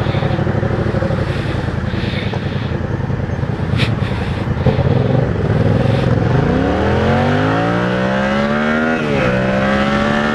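Yamaha MT-07 parallel-twin engine running at low revs, then accelerating from about six seconds in with its pitch rising steadily, dipping sharply with an upshift about nine seconds in and rising again. A sharp click sounds about four seconds in.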